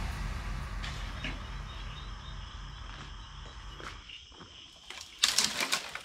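Background music with a slow, steady beat fading out, leaving faint night ambience with the steady high chirring of insects. About five seconds in, a sudden louder burst of noise breaks in.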